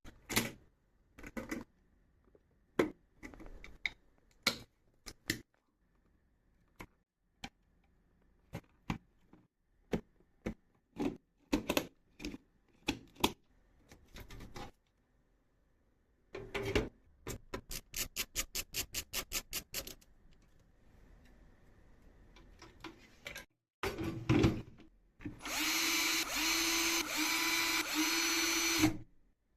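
Scattered clicks and knocks from PC parts being handled, then a quick even run of clicks at about five a second. Near the end an electric screwdriver whirs steadily for about three seconds and stops abruptly.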